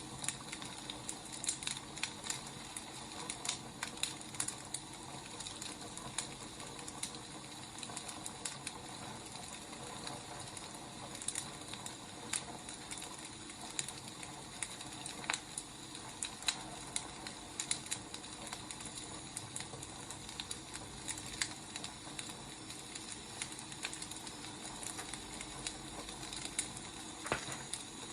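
Wood fire burning with a steady hiss and frequent irregular crackles and pops.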